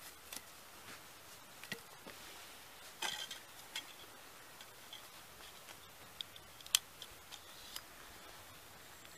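Scattered sharp clicks and light taps from a folding knife and wood being handled, about a dozen irregularly spaced, with a small cluster about three seconds in and the loudest click about two-thirds through.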